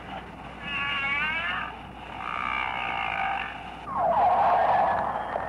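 Whale calls: a series of warbling, wavering whistle-like cries with several overtones, each about a second long, then a louder cry that opens with quick downward sweeps about four seconds in.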